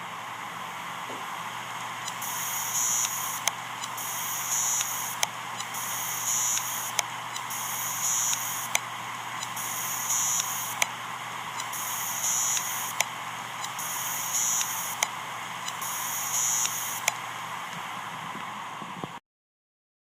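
Failing hard disk drive: a steady whir with a low hum, broken by a repeating cycle of sharp clicks and bursts of high, scratchy buzzing about every one and a half to two seconds, the kind of noise a faulty head or damaged platter makes. It cuts off abruptly near the end.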